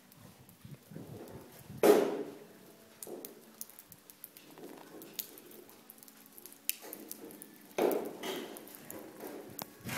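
Domestic white goose calling: a loud honk about two seconds in and another near the end. Soft wet patter and scuffs from its feet on the wet concrete come in between.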